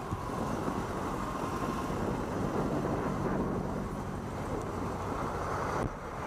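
Steady road-traffic noise with a vehicle engine running low and even. The sound drops abruptly near the end.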